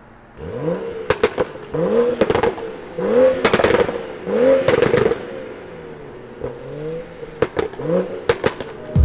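2015 BMW 335i's turbocharged N55 straight-six, with a Pure Stage 2 turbo, catless downpipe and stock catback exhaust, revved in several quick blips. Each rev is followed by sharp pops and crackles from the exhaust as the revs fall, the 'gunshots' of its Bootmod3 tune.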